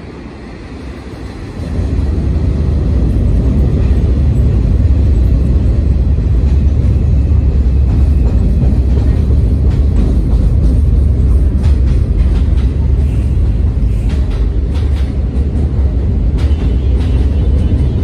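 Q subway train crossing a steel elevated railway bridge: a loud, steady low rumble that starts about two seconds in, with clatter from the wheels over the second half.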